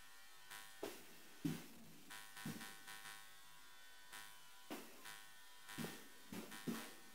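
Faint, irregular thumps of several people's footsteps on a stage, over a steady electrical buzz from the sound system.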